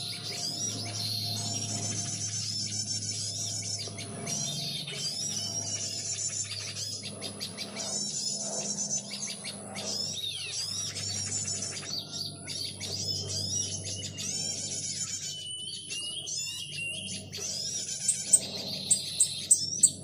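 Dense, overlapping chirping and chattering of small birds: the noisy chatter (crecetan) used to lure birds in for trapping. A steady low hum runs underneath, and near the end sharp, loud chirps come about twice a second.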